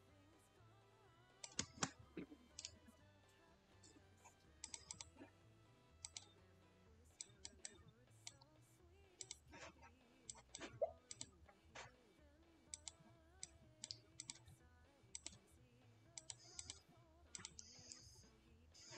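Faint, scattered clicks of a computer keyboard and mouse, a few at a time at irregular moments, over faint background music.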